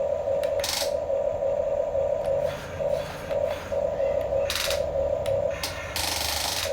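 Electric gear motors of Huina radio-controlled construction models whining. The whine runs steadily, then stops and starts in short pulses through the middle, with a few brief bursts of rough, scraping noise.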